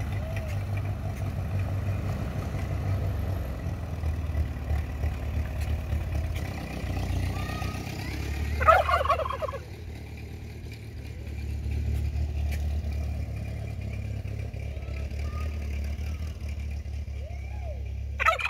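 Tom turkeys gobbling: one loud gobble about nine seconds in and another at the very end, with a few short, softer calls between. Under them, the low, steady running of an old farm tractor's engine.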